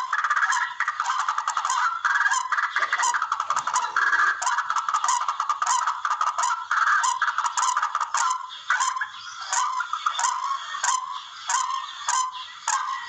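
Barred rail (tikling) calling: a continuous run of rapid repeated calls without a break, with frequent sharp clicks.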